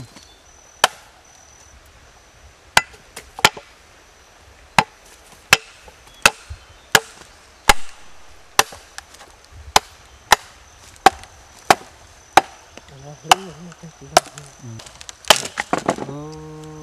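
Machete chopping into a wooden plank, hewing it flat: about twenty sharp separate strikes at an uneven pace of roughly one to two a second. A faint steady high insect whine runs underneath, and a man's voice sounds briefly near the end.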